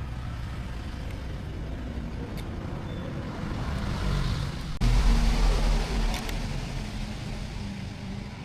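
A small engine running steadily with a low hum. It gets louder from about three and a half seconds in and jumps louder again at about five seconds.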